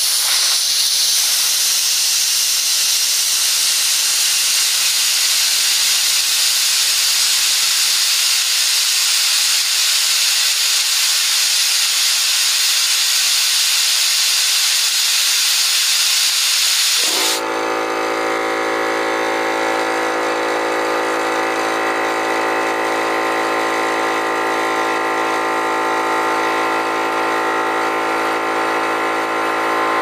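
Compressed air hissing steadily out of an open ball valve on a 21-gallon Central Pneumatic air compressor's tank. About seventeen seconds in the hiss stops abruptly and the compressor's motor and pump start running with a steady hum, refilling the tank after the pressure has dropped to the switch's cut-in point.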